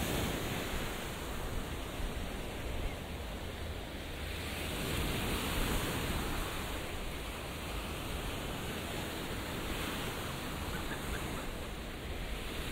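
Caribbean surf washing onto a sandy beach, a steady hiss that swells and eases every few seconds as the waves break.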